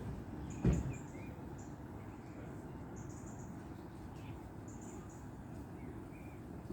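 Small bird chirping in short high notes every second or so over a steady low background rumble, with a single knock just under a second in.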